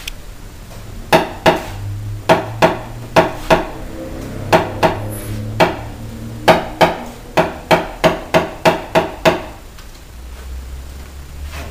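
A series of sharp metallic taps on a car's sheet-metal body panel, each ringing briefly, coming in short runs of two to six at about two or three a second. This is tapping down a crease during paintless dent repair.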